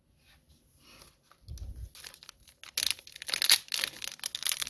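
Plastic crinkling and rustling from trading-card packaging being handled, loudest and densest in the last two seconds, after a soft low thump about a second and a half in.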